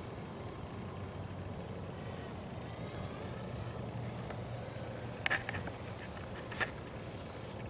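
Distant toy camera drone buzzing with a thin, mosquito-like whine, with a short cluster of clicks about five seconds in and one more click a second later.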